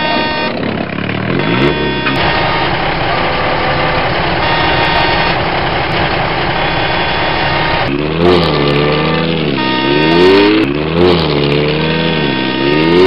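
Truck engine sound, running steadily at first; from about eight seconds in, its pitch rises and falls again and again, like repeated revving.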